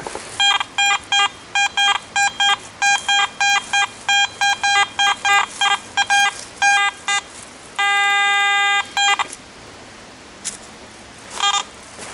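Metal-detector audio signalling a buried metal target: quick short electronic beeps, about three a second, for some seven seconds, then one steady tone lasting about a second, and a single short beep near the end.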